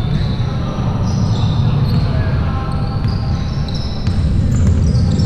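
Basketball being played on an indoor court: the ball bouncing and short, high sneaker squeaks on the floor over a steady low rumble of the hall.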